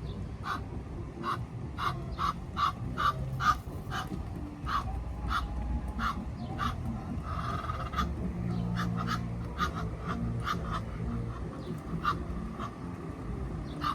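Ducks quacking: a long irregular run of short, sharp quacks, several a second at times.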